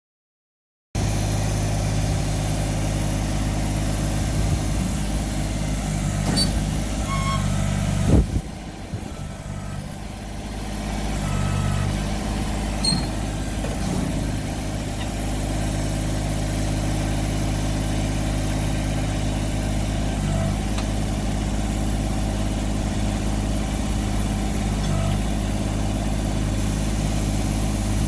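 Small diesel engine of a Kubota compact tractor-loader-backhoe idling steadily, with a sharp knock about eight seconds in.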